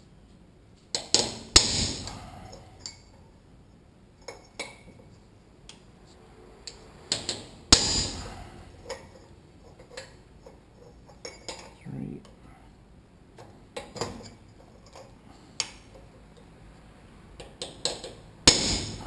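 Hammer striking a chisel against a steel square box tube, a series of irregular sharp metallic blows, with the hardest ones about a second and a half in, about eight seconds in and near the end. The tube is being shaped to fit as a fork damper holding tool.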